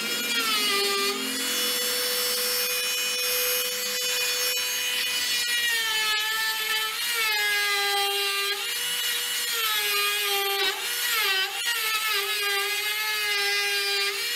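Dremel oscillating multi-tool cutting into a hardwood log, its motor giving a steady whine. From about six seconds in, the pitch keeps dropping and recovering as the blade bites into the wood under load.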